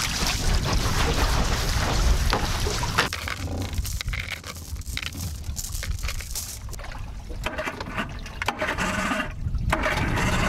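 A boat under way, its motor and wind and water noise loud for the first few seconds. It then gives way to quieter scraping and knocking.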